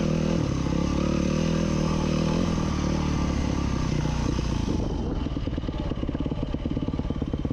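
Enduro dirt bike's engine running as the bike is ridden over rock, then dropping to low revs about five seconds in, where the single firing beats become distinct.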